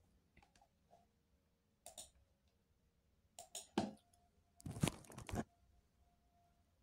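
Quiet room with a few brief, faint rustling noises, the longest cluster about five seconds in.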